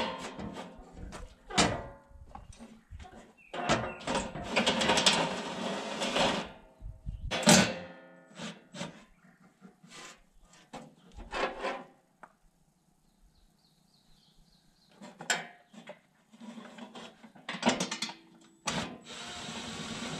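Hand tools and loose sheet-metal panels on a Ford 4600 tractor clanking, knocking and rattling as the panels are taken off, some knocks ringing briefly. There is a quiet stretch of a few seconds past the middle.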